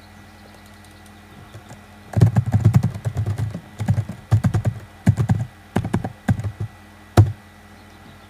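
Typing on a computer keyboard: quick runs of keystrokes start about two seconds in and go on for about five seconds, ending with one sharper, louder keystroke.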